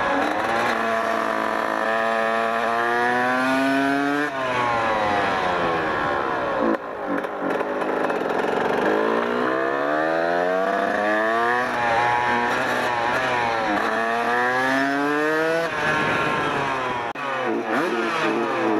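Kawasaki KX 125 single-cylinder two-stroke dirt bike engine revving under way: its pitch climbs as it accelerates, then drops back, several times over.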